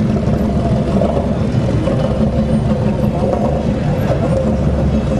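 Steady low engine rumble of a custom street-rod coupe cruising slowly past at low speed.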